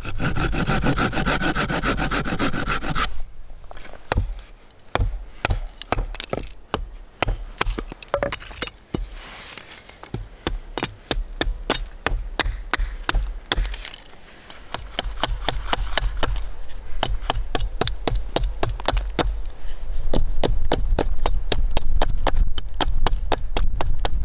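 A hand saw rasping through a green wooden pole for about the first three seconds. Then a hatchet strikes and chops the wood in quick, even blows, about three a second, with a short lull about halfway through.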